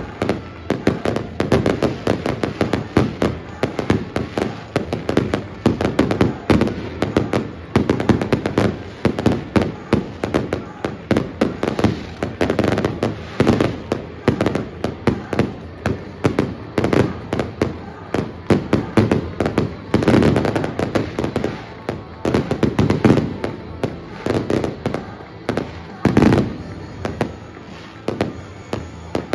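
Aerial fireworks going off in rapid succession: dense bangs and crackles, several a second, with louder bursts about twenty and twenty-six seconds in.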